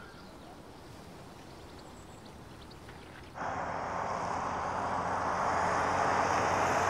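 Faint hiss, then about three and a half seconds in a sudden cut to the road and engine noise of a car driving fast, growing steadily louder.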